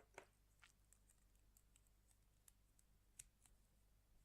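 Near silence with a few faint, scattered clicks from the plastic pieces of a GuoGuan YueXiao 3x3 speedcube being handled and fitted into the partly assembled cube.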